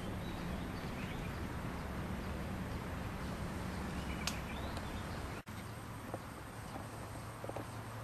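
Outdoor ambience: a steady hiss with a low hum and a few faint short chirps. The sound breaks off abruptly about five and a half seconds in and resumes with a lower hum, as at an edit.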